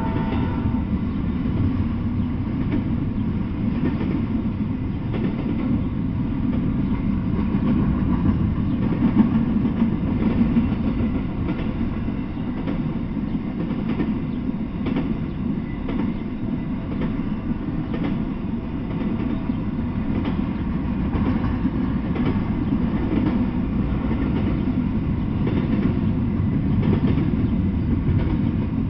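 Double-stack intermodal freight train rolling past: a steady rumble of steel wheels on the rails with a faint clickety-clack over the rail joints.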